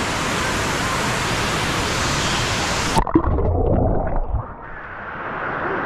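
Steady rushing of a waterfall pouring into a swimming pool. About halfway through, the sound cuts off abruptly to a muffled low rumble with a couple of knocks.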